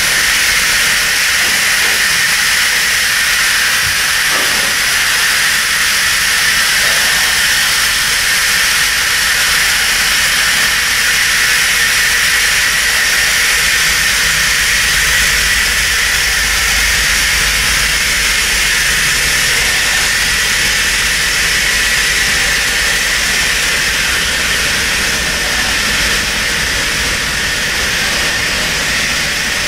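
Steam locomotive letting off steam: a loud, steady hiss that holds without a break.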